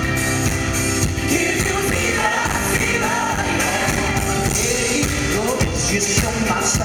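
A live pop band playing with a man singing lead over a steady beat, recorded from the audience.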